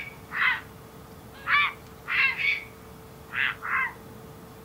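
Ducks calling: a series of about seven short, falling quacks, some in quick pairs.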